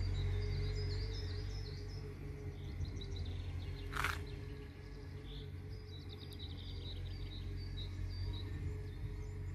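Small birds chirping in short, repeated high notes over a steady low hum, with one brief burst of noise about four seconds in.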